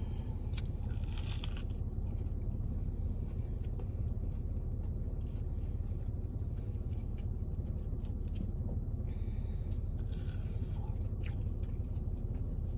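Quiet eating of chicken nuggets and fries inside a car, over a steady low rumble. There are small clicks throughout and short rustles of the paper fry carton about half a second in and again about ten seconds in.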